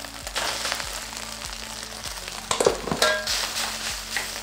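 Rice and egg sizzling in hot oil in a stainless steel frying pan while a wooden spatula stirs and scrapes against the pan, with a few louder scrapes and knocks about halfway through.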